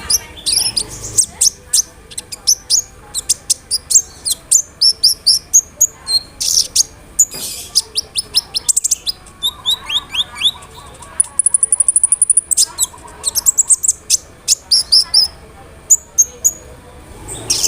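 Kolibri ninja sunbird singing: a rapid stream of sharp, high chirps and twitters, with a fast, even trill about eleven seconds in.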